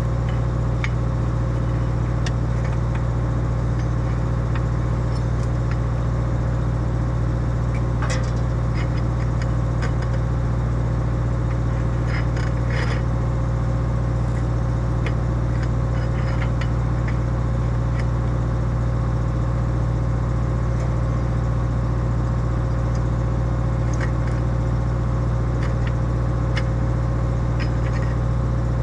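Excavator's diesel engine running steadily, with scattered metallic clicks and clanks from the track and undercarriage as the machine is worked to get its thrown track back onto the rollers.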